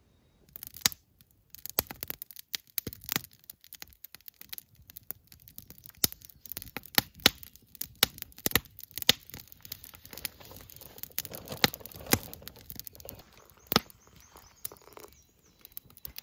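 Wood campfire crackling, with frequent irregular sharp pops and snaps.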